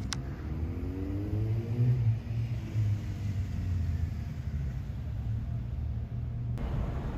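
Steady low rumble of road traffic, with a vehicle's engine rising in pitch as it accelerates during the first couple of seconds. The rumble cuts off suddenly near the end.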